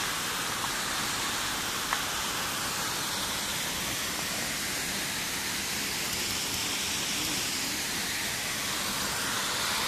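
Waterfall falling into a plunge pool: a steady hiss of falling water. A brief click about two seconds in.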